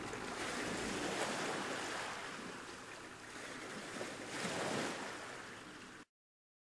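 Ocean waves washing in, a rushing hiss that swells and falls back twice, then cuts off suddenly near the end.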